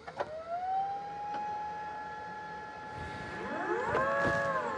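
Electric motor of a Solectrac e25 electric tractor whining as it spins up with no load. The whine rises in pitch over the first second and holds steady. About three and a half seconds in, a second, lower whine climbs and then settles.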